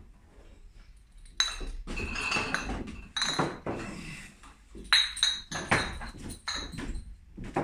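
Glass beer bottles clinking and ringing against each other as they are handled for bottling: several separate clinks, coming closer together from about five seconds in.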